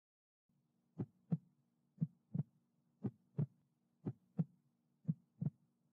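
Heartbeat sound effect: pairs of low thumps about once a second, five times, over a faint steady low hum, leading into a song.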